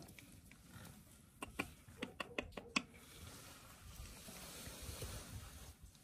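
A quick run of about eight sharp taps or clicks, starting about a second and a half in, followed by faint rustling.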